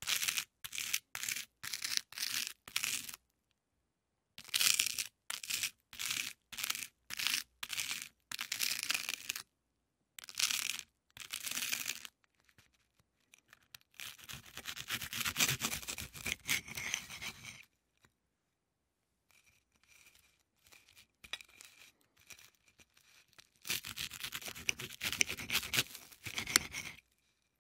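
Knife spreading butter on crisp toast: a run of short rasping scrapes, about one stroke a second, then longer, drawn-out scraping passes across the bread with pauses between.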